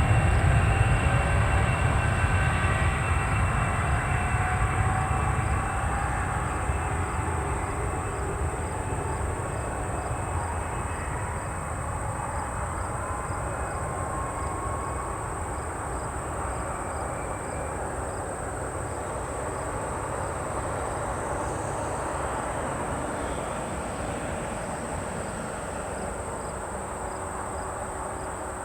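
CRJ-200 regional jet's twin GE CF34 turbofans at takeoff power, a low rumble with a whine falling in pitch as the jet passes and climbs away, fading steadily. Insects buzz steadily throughout.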